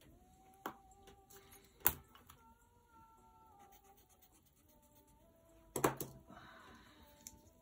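A few sharp clicks and taps of a graphite pencil being handled and set down on a spiral sketchpad, with the loudest cluster of taps about six seconds in followed by a brief rustle.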